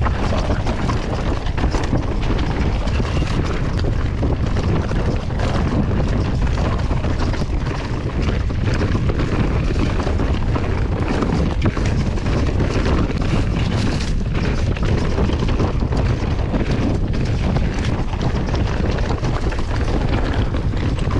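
Wind buffeting the microphone of a camera on a moving mountain bike, a constant low rumble, with tyre noise and frequent short knocks and rattles from the bike riding over a dirt trail.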